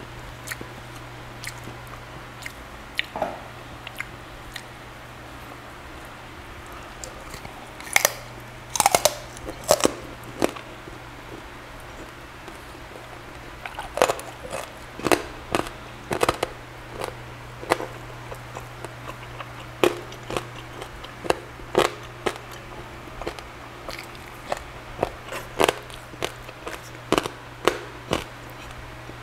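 Close-up chewing of charcoal-grilled pork belly (liempo) and rice: irregular sharp crunches and wet mouth smacks, bunched into clusters of rapid bites.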